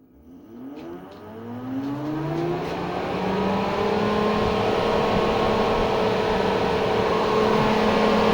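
Home-built electric fan starting for the first time: its motor spins up from rest with a whine that rises in pitch over about four seconds, then runs on at a steady high speed with a strong rush of air.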